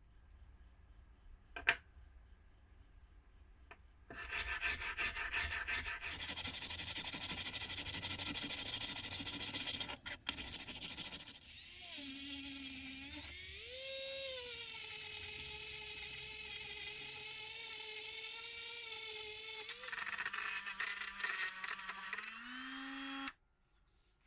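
Fast, even rubbing strokes of abrasive work on metal, then from about halfway a small electric power tool whining, its pitch rising, holding steady, then dipping and rising again before it stops near the end.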